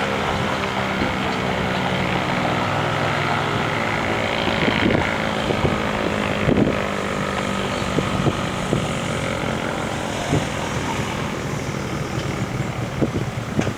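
ASC T-135 AC/DC outdoor warning siren sounding a steady multi-pitched tone during a test, its pitch drifting slowly downward, with occasional short thumps on the microphone.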